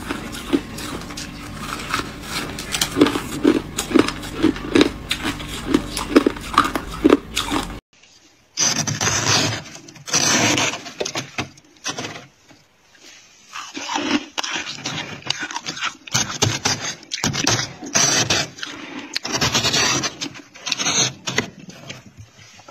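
Close-up crunching of ice being chewed, with crisp clicks. About eight seconds in it cuts to crackly scraping and crumbling of soft freezer frost dug at by fingers, in uneven bursts with short gaps.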